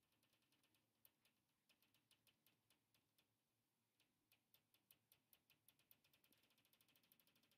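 Very faint, irregular ticks and scratches of fingertips working on a printed fabric pillow cover, turning into a quick run of small clicks near the end.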